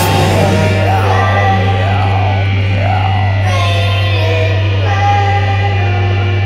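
The end of a rock band's piece: the drums stop, leaving sustained electric guitar and keyboard tones that waver and slide in pitch over a steady low amplifier hum, slowly thinning out.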